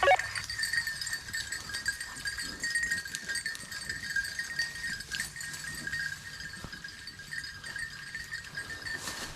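A pack of rabbit hounds baying steadily while running a rabbit's trail.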